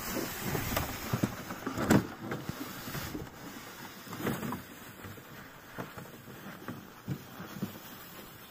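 A fishing sled sliding and scraping over snow, with footsteps crunching alongside and a few sharp knocks about one and two seconds in.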